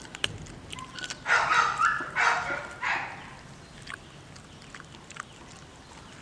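A dog barks three times in quick succession between about one and three seconds in. Small clicks throughout come from a pit bull chewing a raw whole chicken.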